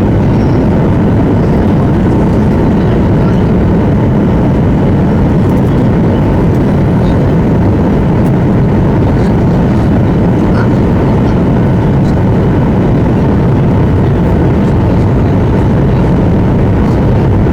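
Steady, loud roar of a Boeing 737-800's CFM56 engines and the airflow over the fuselage, heard from inside the passenger cabin in flight.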